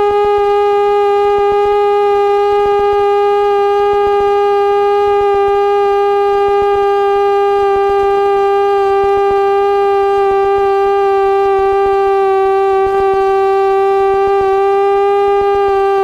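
Piper PA-28's engine and propeller heard from inside the cockpit: a loud, steady high-pitched drone, easing slightly down in pitch at the start and then holding, as on a throttled-back final approach.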